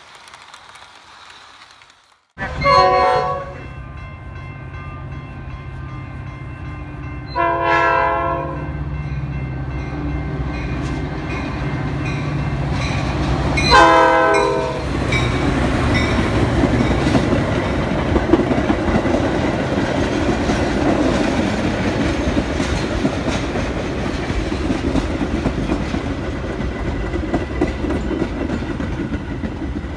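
Metra commuter train's diesel locomotive sounding its horn in three separate blasts, each about a second long, over a low engine rumble, starting about two seconds in. After the third blast the train rolls past with steady clattering of wheels on the rails.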